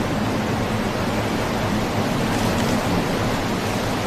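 Steady rushing of storm wind over rough, choppy sea.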